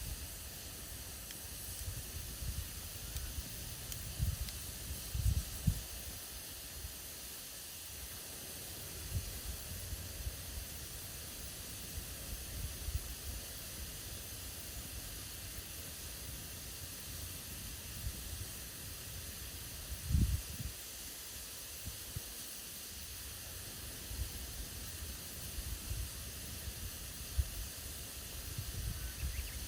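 Campfire burning with a steady hiss. Irregular low thumps come and go, with the strongest about five seconds in and again around twenty seconds.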